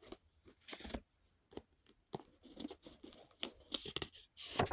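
A deck of paper reading cards being handled and flipped through: a string of short rustles and flicks of card sliding against card, with a longer, louder rustle near the end.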